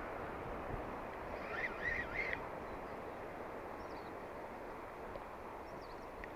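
Steady open-air noise with a bird calling: a short burst of chirping notes about a second and a half in, a few faint higher chirps later, and another burst of chirping right at the end.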